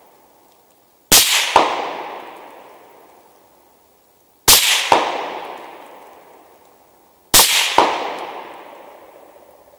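Three rifle shots fired with 55-grain loads, about three seconds apart. Each is a sharp report, then a second crack about half a second later and a long rolling echo that fades over two to three seconds.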